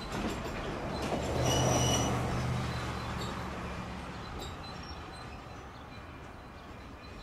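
Unseen passenger train on the Black River & Western Railroad, its diesel locomotive and cars rumbling with a low engine drone. The sound swells about a second and a half in, then slowly fades away.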